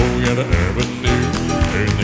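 Southern gospel male quartet singing in close harmony, with a live band's bass and drums keeping a steady beat.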